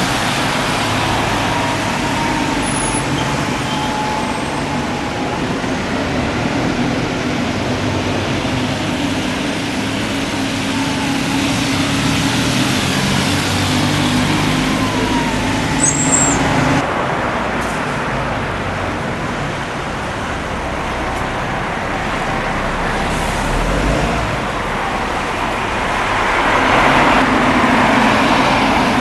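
Road traffic: a bus or car engine hums steadily while vehicles pass, with one passing louder near the end.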